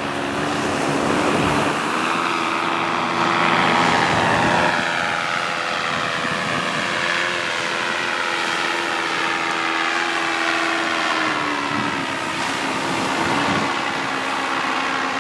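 Paramotor (powered paraglider) engine and propeller droning as it flies low overhead, its pitch sliding down around four to five seconds in and again near twelve seconds as it passes. Wind noise on the microphone underneath.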